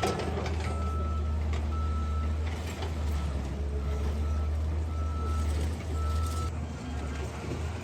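Bulldozer's diesel engine running with a low rumble while its reversing alarm beeps about once a second, with a few sharp knocks of rubble. The beeping stops about six and a half seconds in.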